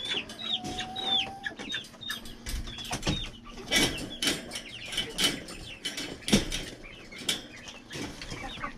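Chickens making many short, falling, high-pitched calls over and over, with sharp taps and rustling among them.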